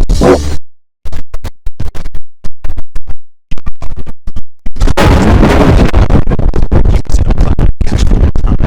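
Heavily distorted, stutter-edited remix of the IBM OS/2 Warp shutdown sound, very loud. It comes in short choppy bursts, then turns into continuous harsh distortion about halfway through.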